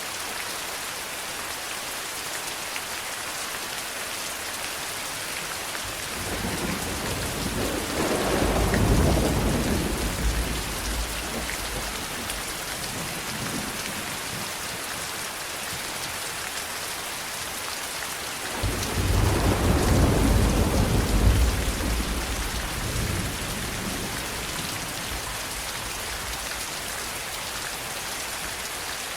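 Steady heavy rain hissing, with two long rolls of thunder: one builds about six seconds in and peaks soon after, and a second breaks in suddenly past the halfway mark and rumbles for several seconds before fading.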